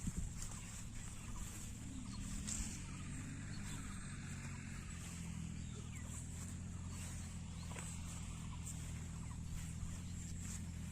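A motor or engine running steadily with a low hum, along with a faint, steady high-pitched hiss.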